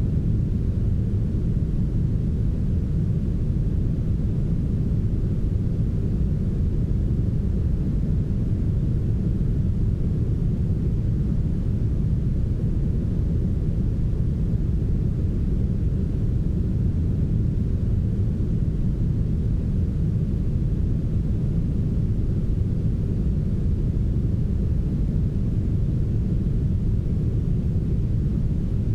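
Steady brown noise: an even, deep rushing hiss, strongest in the low end and fading toward the highs, with no change in level.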